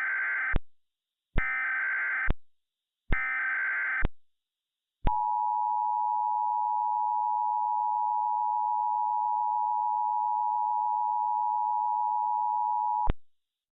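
Emergency Alert System signal: three SAME header data bursts, each a buzzy, warbling screech about a second long, about a second apart. Then the EAS two-tone attention signal, a steady shrill dual tone held for about eight seconds before it cuts off suddenly.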